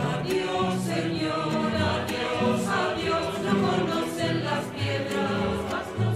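Background music: a choir singing long held notes over an instrumental accompaniment.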